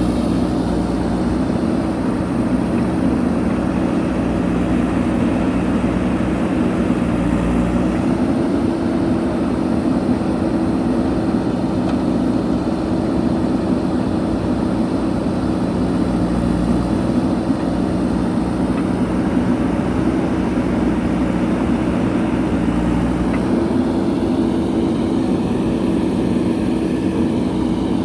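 JCB backhoe loader's diesel engine running steadily under work. Its speed dips and picks up again twice, about eight seconds in and with about five seconds left.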